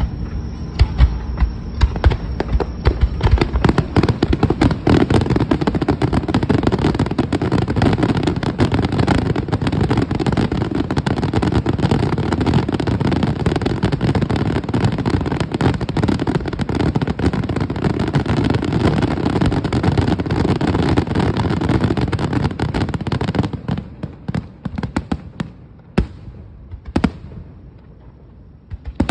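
Aerial fireworks finale: a dense barrage of shell bursts and crackling with no break, which suddenly thins about 23 seconds in to scattered single bangs.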